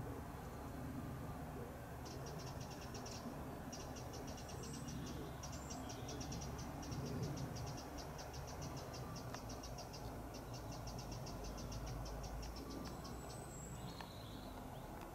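An insect stridulating in the grass: a fast, even run of ticks that starts about two seconds in, breaks briefly, then runs on until about two seconds before the end. A few short bird chirps and a low background rumble lie under it.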